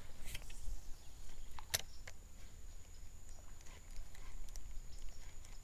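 A fishing rod and baitcasting reel being handled and cast: a few sharp clicks, the loudest about two seconds in, over a faint steady high whine.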